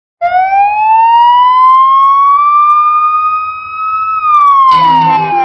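A siren wail rising slowly in pitch for about four seconds, then starting to fall. About a second before the end, the song's music comes in underneath it.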